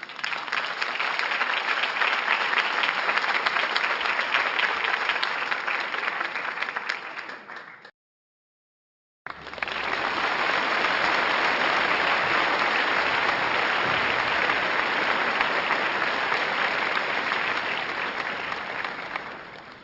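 Crowd applause: a stretch of applause about eight seconds long that fades out, a short silence, then a second, longer stretch of applause that also fades away near the end.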